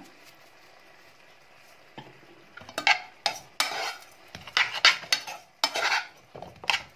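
Metal spoon stirring cooked rice in a metal saucepan, scraping and clinking against the pan in quick irregular strokes that start about two seconds in.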